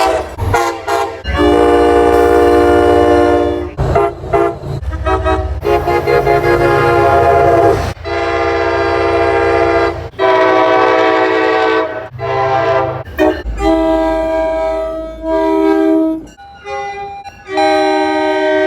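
MBTA train horns blowing one after another: a few quick toots, then long blasts of several notes sounding together, each held for two to three seconds. The clips are cut together, so the pitch and the chord change abruptly from one blast to the next.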